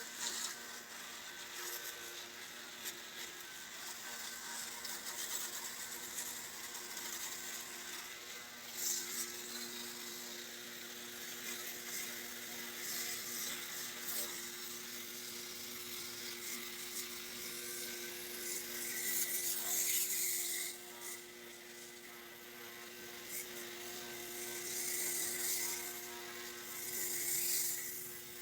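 A small electric motor humming steadily, with a hiss that swells several times.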